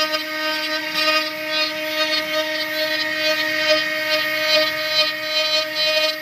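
Two-spindle CNC router running while it engraves wood: a steady, unchanging spindle whine, with an irregular hiss from the bits cutting over it.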